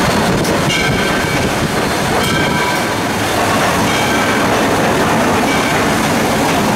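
Southern Railway 630, a 2-8-0 steam locomotive, running under way, heard from inside its cab as a loud, steady rumble and rattle. Brief faint high tones come and go a few times.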